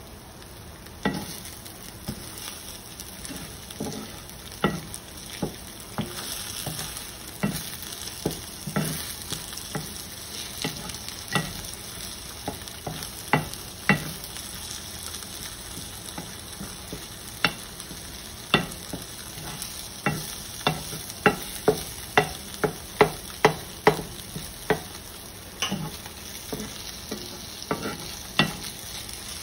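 Eggs sizzling in a cast-iron skillet while a spatula scrapes and knocks against the pan to scramble them. The knocks come irregularly and fall closer together in the second half, about two a second for a few seconds.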